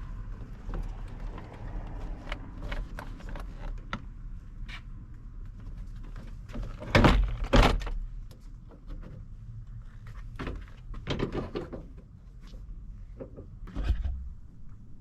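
A loosened plastic door trim panel being handled against a truck door: scattered clicks and knocks, with two louder knocks close together about seven seconds in.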